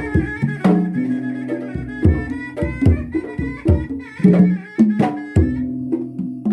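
Traditional Sundanese pencak silat accompaniment: hand drums struck in quick irregular strokes under a wavering wind-instrument melody.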